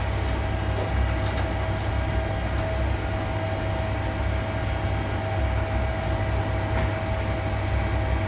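Steady hum of a running fan: a low drone with a constant whine above it, unchanging throughout.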